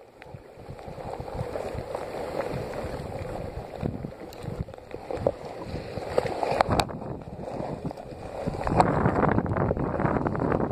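Water gurgling and splashing around a kayak on the move, with wind on the microphone. It gets louder near the end, with more knocking and rustling.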